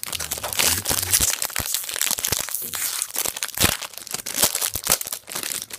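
Plastic wrapper of a trading-card pack being torn open and crinkled by hand, a dense, continuous crackling and crinkling.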